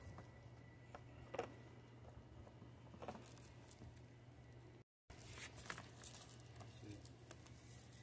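Faint plastic clicks and knocks as a vacuum cleaner's ribbed hose is handled and fitted onto the connector by the dust canister, over a low steady hum.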